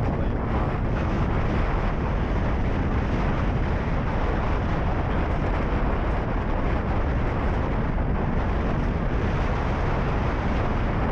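Wind buffeting the microphone: a steady, loud rumbling rush.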